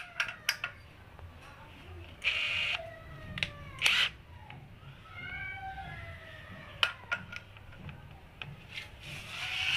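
Clicks, knocks and rubbing from a cordless impact wrench being handled. There is a short whirring burst a little over two seconds in, and sharp clicks about four and seven seconds in.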